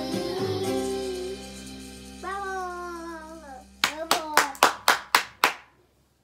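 Music playing, with a short sung phrase about two seconds in, then a quick run of about eight hand claps, about four a second, starting a little before the four-second mark.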